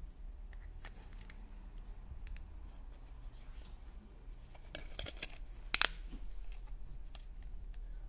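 Plastic back cover of a ZTE keypad phone being handled and pressed back onto the body: light scrapes and small clicks, with the loudest snap about six seconds in as the cover clips into place.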